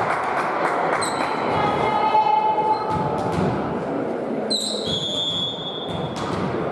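Volleyball play in a sports hall: repeated ball hits and sharp knocks over steady hall noise, with a long pitched call or squeal about a second in. A high whistle blows for about a second and a half, about four and a half seconds in.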